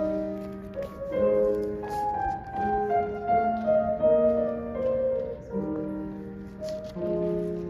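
Grand piano played solo: a melody over held lower notes, the notes changing every half second or so and ringing on.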